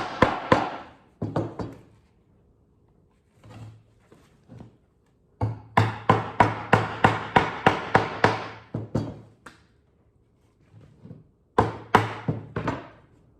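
Rubber hammer striking a pine birdhouse, driving its pushed-out perches back in. Three runs of quick blows about three a second: a short run at the start, a long run of a dozen or so in the middle, and a few more near the end.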